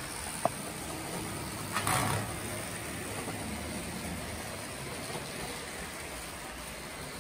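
Rivarossi Mikado model steam locomotive running on the track, pulling a rake of coaches: a steady motor hum and wheel noise, the usual noisy running of a Rivarossi mechanism. A sharp click about half a second in and a short rattle about two seconds in.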